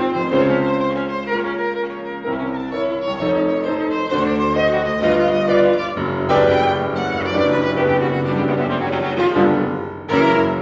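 Viola bowing a melodic line over grand piano accompaniment, a classical sonata for the two instruments. The sound dips briefly near the end, then a new phrase begins with a strong attack.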